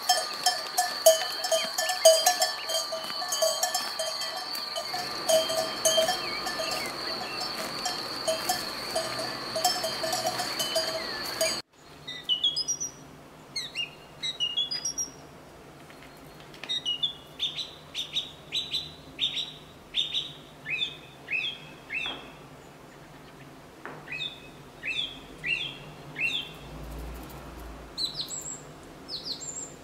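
Bells clanking and ringing for about the first twelve seconds, cut off suddenly. Then a bird calls over and over with short chirps that sweep downward in pitch, over a faint low hum.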